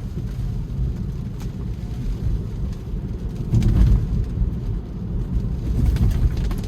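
Low road and tyre rumble inside an electric Tesla's cabin while driving on wet roads in a rainstorm, with a few scattered ticks, swelling louder about three and a half seconds in.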